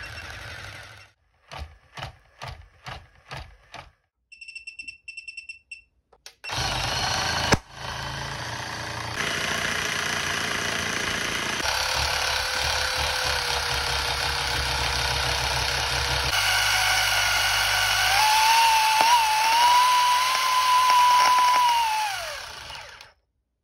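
Animated caged-skeleton Halloween toy driven far past its rated voltage from a bench power supply: a few ticks and a short run of high beeps, then its motor starts up with a loud, steady rattling buzz that steps up in loudness as the voltage is raised. Near the end a high whine rises and wavers, then falls away and the sound stops.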